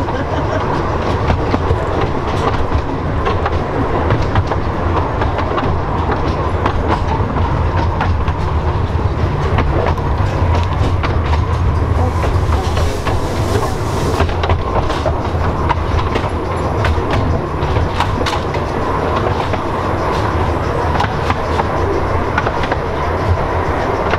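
Carriage of a 10¼-inch gauge miniature railway running along the track: a steady rumble of the wheels with irregular clicks from the rail joints. About halfway through, a brief hiss lasts around two seconds.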